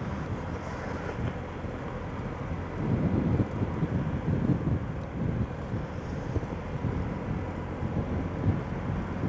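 Wind buffeting the microphone of a moving motorcycle, with engine and road noise underneath. The low rumble swells and eases in uneven gusts.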